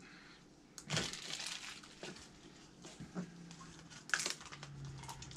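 Plastic toy capsules being handled and twisted open: scattered clicks and soft rustling.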